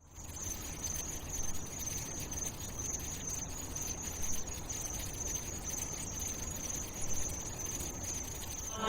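Steady high-pitched insect chirring, like a cricket chorus, over a low background rumble.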